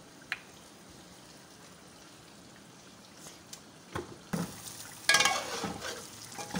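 Faint room background with one small click, then about four seconds in a knock, and a spoon scraping and stirring chicken qorma in a metal pot while the gravy fries and sizzles.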